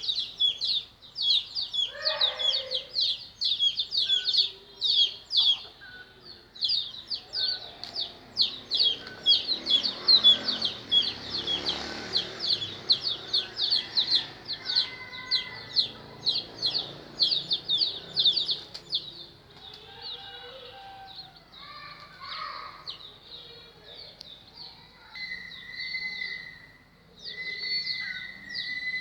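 Chicks peeping rapidly and continuously, with a lower call about two seconds in. The peeping thins out after about 19 seconds, and a steady high tone comes in near the end.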